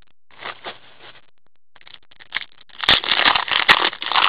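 Trading cards being handled with cotton-gloved hands: faint rustling in the first second, then louder crinkling and scraping with a couple of sharp clicks in the last second and a half.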